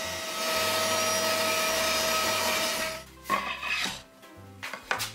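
Thickness planer running with a hardwood board feeding through it. The cut grows louder just after the start and stops abruptly about three seconds in, followed by a few sharp knocks of the board being handled.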